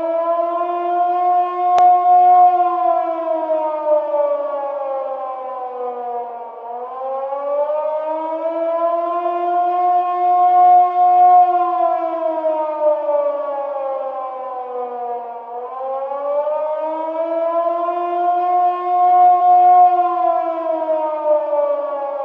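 Civil-defense-type siren sounding a slow wail: the pitch climbs over a second or two, holds, then sinks slowly, about once every nine seconds. A single faint click comes about two seconds in.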